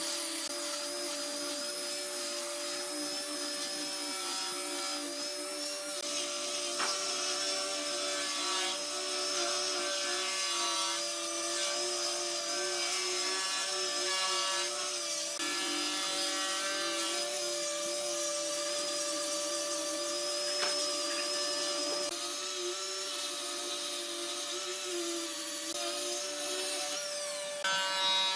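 An electric power tool running steadily on wood, with a constant motor whine and rubbing as it works. The sound shifts briefly and gets a little louder near the end.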